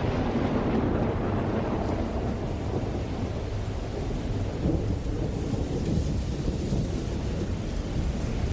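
Steady rain with a long, low rumble of thunder under it.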